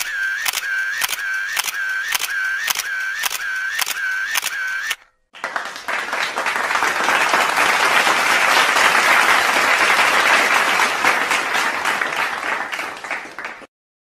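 Camera shutter clicking repeatedly, about two clicks a second, for about five seconds. After a short pause, a crowd applauds for about eight seconds.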